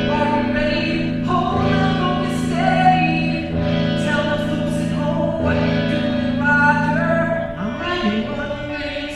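Live stage-musical music: voices singing held, sliding notes over a steady sustained band chord, the notes changing every second or two.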